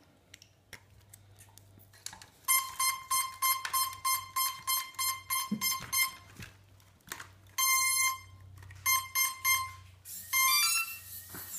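Cheerson CX-20 quadcopter powering up as its battery is plugged in: a few small plug clicks, then a run of short high electronic beeps at about three a second, one longer tone, more beeps, and a quick rising series of tones near the end, the drone's power-up tones.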